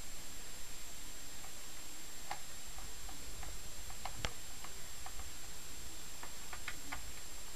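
Small, irregular clicks and ticks of a screwdriver working the screws out of a laptop's plastic bottom panel, with one sharper click about four seconds in and a quick cluster near the end.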